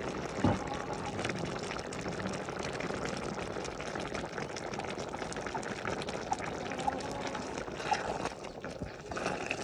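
A pot of goat offal and cabbage stew bubbling steadily at a boil, with many small crackling pops. A wooden spoon stirs through it near the end.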